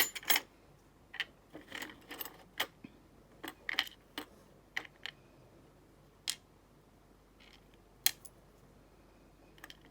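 Small brass pins and other metal parts of a disassembled padlock core clicking and tinkling as they are handled and tipped into a pinning tray. Light metallic clicks come thick in the first few seconds, then only now and then.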